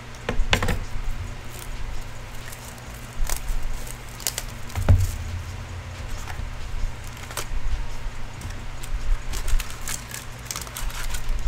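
Clear plastic shrink-wrap on a hockey card box crinkling and crackling as it is cut and pulled off, with scattered sharp clicks and a dull thump about five seconds in. A low steady hum runs underneath.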